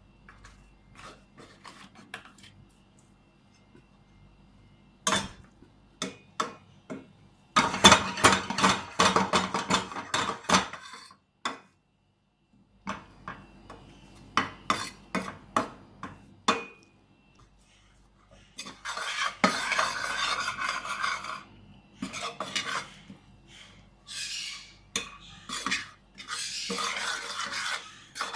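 Kitchen utensils clinking and knocking against cookware, with three stretches of a few seconds each of scraping and stirring.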